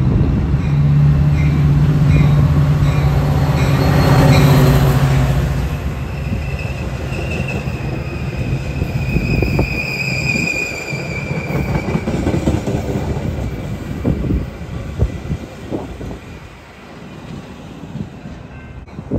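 Metra diesel locomotive 175 running close past with its engine hum peaking about four and a half seconds in, followed by its bilevel passenger cars rolling by with a high, steady squeal and a run of wheel clacks over the rail joints, fading near the end. A grade-crossing bell rings about twice a second at the start.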